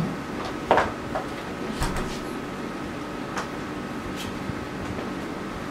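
Steady room hum with a few brief, faint clicks and knocks spread through it, the small sounds of someone handling painting tools at an easel.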